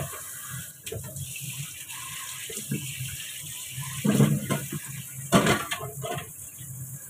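Kitchen tap running water into the sink as something is rinsed under it, with two louder knocks about four and five and a half seconds in.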